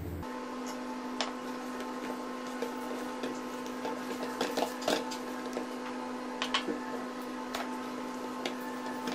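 A hand mixing milk into crumbly flour in a stainless steel bowl, the start of kneading dough: scattered soft scrapes and light clicks against the metal. A steady hum runs underneath.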